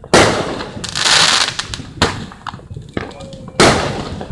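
Fireworks going off: three sharp bangs, with a loud hissing crackle lasting about a second between the first two.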